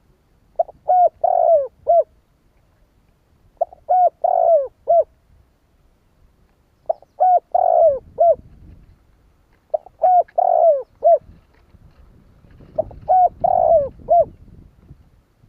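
Spotted dove cooing: a phrase of four or five short coos with one longer note that falls in pitch, repeated five times about every three seconds.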